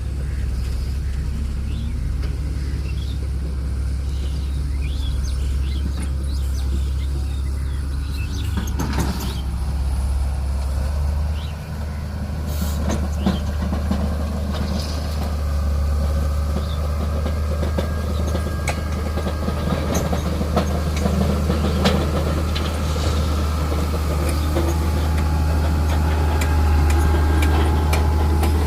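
Heavy diesel engine of a motor grader running steadily with a low drone, with scattered knocks and clatter from about nine seconds in.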